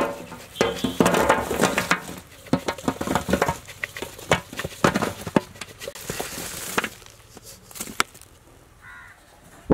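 Stiff dried salted sea fish dropped by the handful onto a steel tray: a quick run of dry clattering knocks with some metallic ringing at first, thinning out after about eight seconds. A crow caws faintly near the end.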